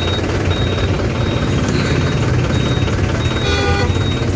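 Bus engine idling with a steady low rumble, a short high beep repeating about every half second, and a brief horn toot about three and a half seconds in.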